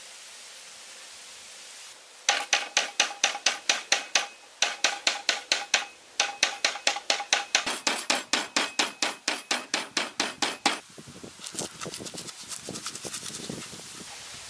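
Lemongrass stalks being bruised on a wooden cutting board with a kitchen knife: loud, even strikes about four or five a second with a slight metallic ring, in three runs with brief pauses. From about eleven seconds in, they give way to quieter, quicker knife cuts through the crushed stalks.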